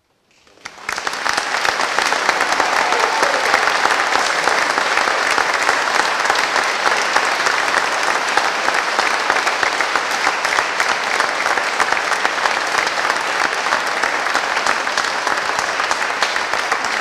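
Audience applauding: the clapping starts about half a second in, swells within a second or so, and holds steady and dense.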